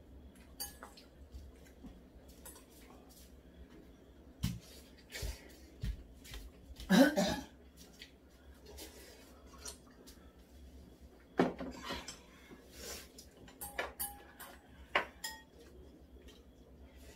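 Chopsticks and spoons clinking and scraping against bowls and a noodle pot, with scattered light clicks and two louder clatters of tableware about seven and eleven seconds in.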